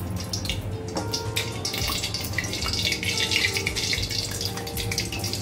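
Ghee sizzling and crackling as it melts into hot oil in a steel kadhai, the crackle growing denser after about a second and a half. A steel spoon knocks once against the pan about a second in.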